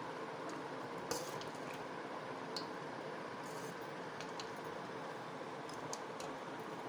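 Steel spoon stirring cooked rice in a steel bowl: a few scattered clinks and scrapes of metal on metal, the sharpest about a second in, over a steady background hum.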